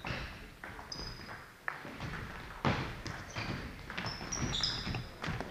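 Table tennis rally: the ball clicking off rackets and table in quick, uneven succession, with a few short squeaks of shoes on the sports-hall floor.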